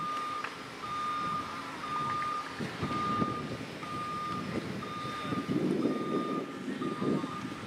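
Vehicle reversing alarm beeping steadily off to one side, a single high beep about once a second, with a low rumble underneath that swells near the end.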